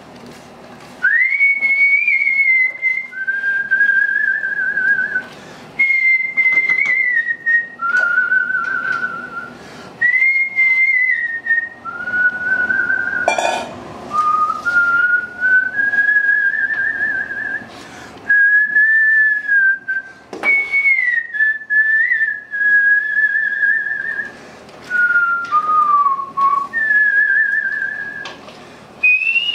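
A person whistling a slow tune in short phrases, each note wavering with a vibrato. There are a few sharp knocks from stirring in a pot, the loudest about halfway through.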